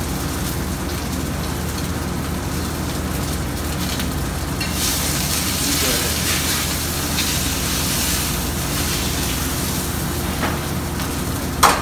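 Ribeye steak sizzling in a hot skillet of rendered beef fat, the sizzle growing louder about five seconds in when the steak is worked with tongs, over the steady hum of a kitchen exhaust hood. A sharp clack near the end.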